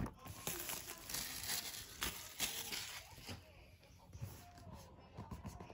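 Packaging being handled during an unboxing: rustling and crinkling of paper, plastic and cardboard, busiest in the first three seconds and quieter after.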